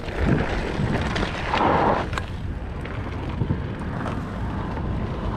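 Wind buffeting the microphone of a mountain biker on the move, a steady low rumble mixed with tyre and trail noise, with a few light clicks and a brief louder rush of noise about a second and a half in.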